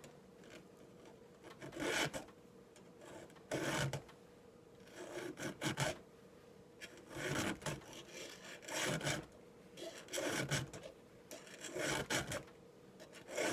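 Round 5/32-inch chainsaw file rasping across a dull chain cutter tooth to sharpen it: about eight separate strokes, roughly one every second and a half.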